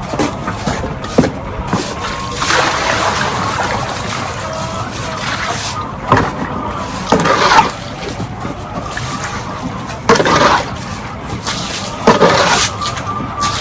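Water splashing and sloshing in several short bursts over a steady background hiss, as the poultry house's foot-dip bath is emptied and refilled.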